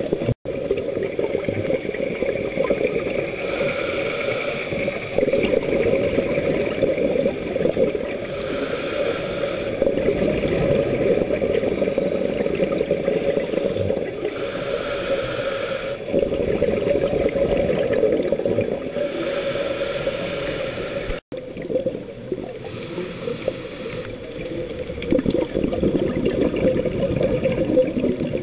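Scuba diver breathing through a regulator, recorded underwater: a surge of exhaled bubbles about every five to six seconds over a steady low hum.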